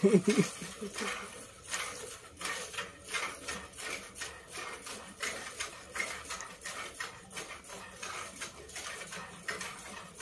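Cow being milked by hand: milk squirting into a plastic jug in a steady rhythm of short streams, about two to three squirts a second.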